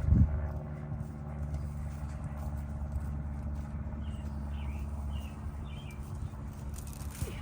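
An engine running steadily, with a thump just after the start; the engine sound fades away through the second half. A bird chirps four times in the second half.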